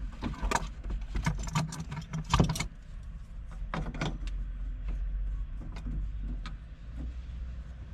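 Metal clicks and knocks from hands and tools working at the shift rod coupler in a VW Beetle's floor tunnel, loosening it to get it off. They come thick and fast for the first few seconds, then thin out to a few single clicks over a steady low hum.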